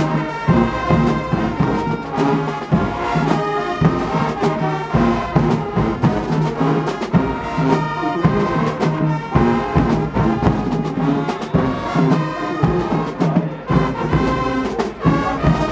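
High school marching band playing a stand tune in the bleachers: a loud brass section over a steady drum beat.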